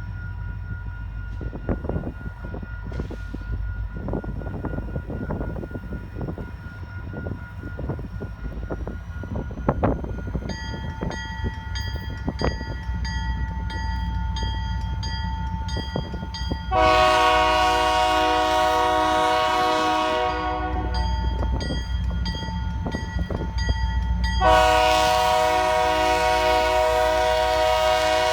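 A Canadian Pacific SD40-2 diesel locomotive blowing its multi-chime air horn in two long blasts, the first about 17 seconds in and the second about 24 seconds in. A low rumble runs underneath, and from about halfway through a bell rings steadily.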